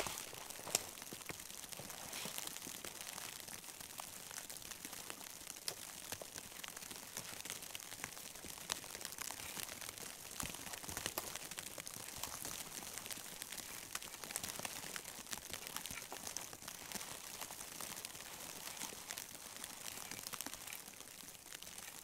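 Evergreen boughs rustling and crackling as they are handled and laid over a lean-to's pole frame, with crunching steps in snow and a sharp click a little under a second in.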